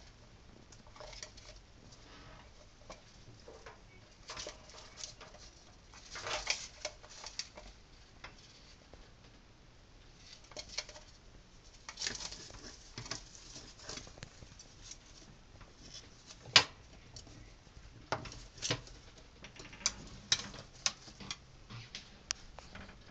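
A parrot's beak and feet scratching, tapping and clicking on a cup and countertop while it forages: scattered small clicks and short rustles, with one sharp tap about two-thirds of the way through.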